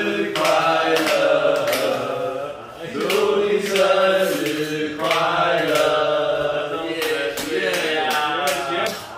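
A group of voices chanting together in unison, with hands clapping a steady beat.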